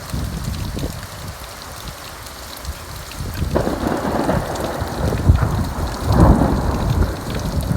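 Thunder rolling over steady rain: a low rumble that swells to a louder, rolling peal about halfway through, with surges around five and six seconds in.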